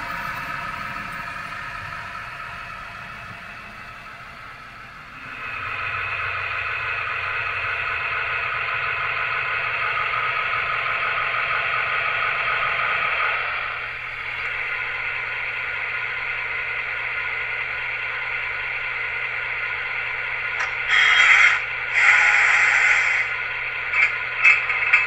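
Model V60 diesel shunting locomotive's recorded engine sound, played through its small onboard speaker. The engine revs up about five seconds in and drops back to idle near fourteen seconds. Several short loud bursts come near the end.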